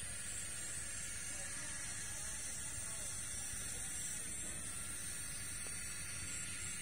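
Steady outdoor background noise: a low rumble and a constant hiss, with faint distant voices.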